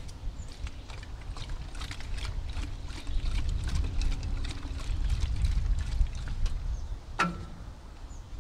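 Diluted vinegar pouring and glugging from a plastic gallon jug into a tractor radiator's filler neck, with many small ticks and splashes and a steady low rumble underneath. A sharper knock comes about seven seconds in.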